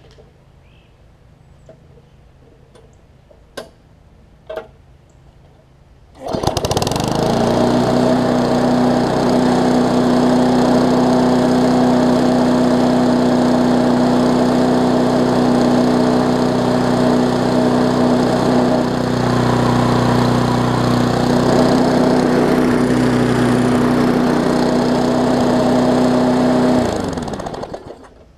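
Briggs & Stratton Classic push-mower engine that starts abruptly about six seconds in and runs at a steady speed. It is shut off near the end and its pitch falls as it winds down. The mower is vibrating some, made worse by the thin, cheap deck it is mounted on.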